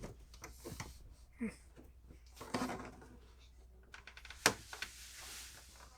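Quiet clicks and scrapes of a screwdriver prying a tight plastic cover plate off an electrical outlet, with one sharper click about four and a half seconds in.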